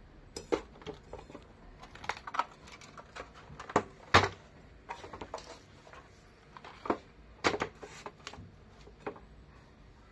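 Old fluorescent lamp fixture giving off irregular sharp clicks and crackles in uneven clusters, the loudest about four seconds in.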